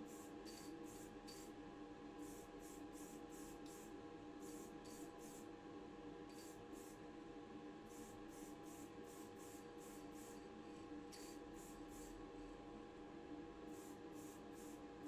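Near silence: faint room tone with a steady low hum and scattered faint short hissy ticks.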